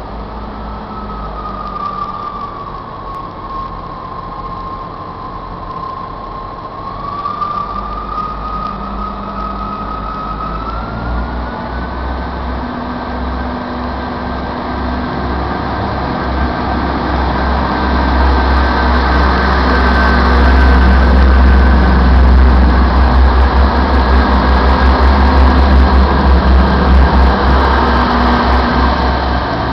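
Class 158 diesel multiple unit pulling away from a standstill, its underfloor diesel engines running under power with a whine that dips, then rises about a third of the way in and holds steady. The engine rumble grows louder as the cars pass close by, loudest in the second half.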